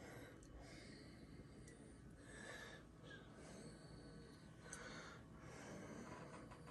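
Near silence: room tone, with a few faint breaths close to the microphone.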